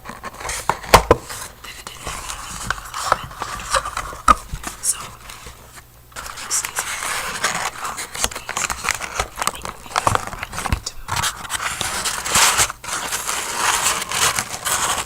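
Close-up crinkling and rustling handling noises, full of small clicks and crackles, with a short lull about six seconds in.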